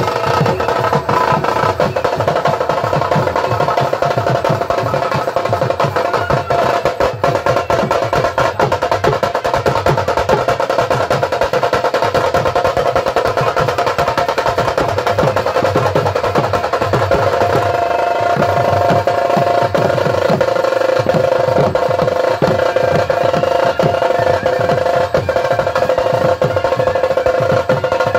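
Loud live band music from a Bengali bajna party: rapid, dense drumming on snare-type side drums under a steady held melody.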